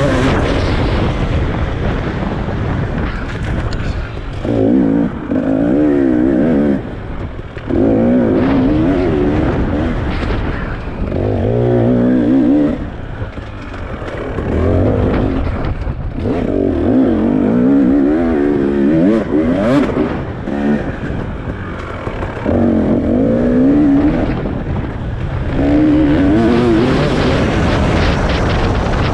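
Racing motorcycle engine revving hard in repeated bursts, its pitch climbing and dropping over and over as the throttle opens and closes, with short dips between bursts, over a continuous rushing noise.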